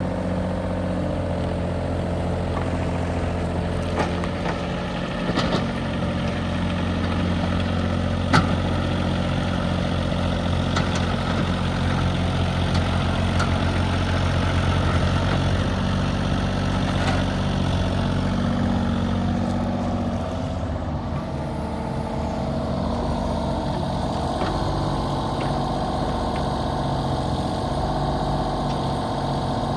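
Kubota KX033-4 mini excavator's diesel engine running steadily, its pitch and tone shifting about two-thirds of the way through. A few sharp clicks or knocks sound over it.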